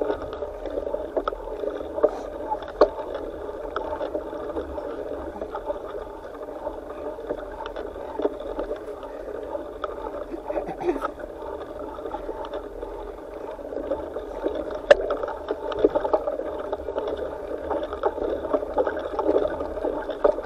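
Bicycle riding over a dirt singletrack, heard from a bike-mounted camera: a steady rolling rumble from the tyres and mount, with frequent small clicks and rattles from bumps on the trail.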